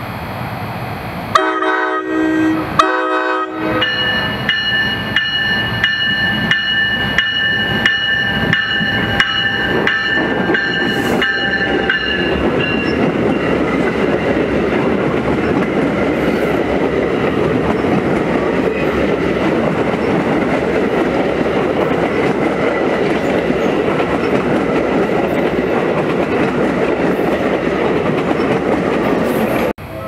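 NJ Transit commuter train sounding its horn in two blasts, the first about a second long and the second shorter, then ringing its bell about twice a second for several seconds. The double-deck coaches then pass close by with the steady running noise of wheels on the rails, which cuts off suddenly near the end.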